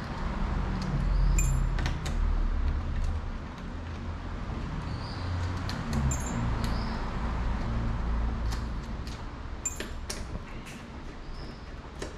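Light metallic clicks and clinks of small screws and the steel oil pump cover being handled and set down on a workbench as the screws are taken out by hand, a dozen or so scattered taps. A steady low rumble sits underneath.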